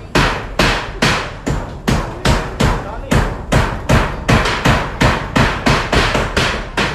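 A hammer driving nails, struck in a steady run of sharp blows about two to three times a second.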